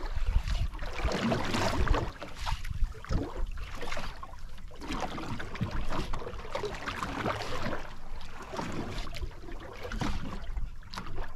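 Wind buffeting the microphone and waves sloshing against the hull of a small outrigger boat at sea, in uneven surges every couple of seconds.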